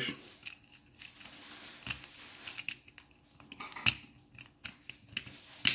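Plastic housing of an M2188 quartz clock movement being lined up and pressed together by hand: small plastic clicks and scraping, with a sharp snap near the end as the cover pops into place.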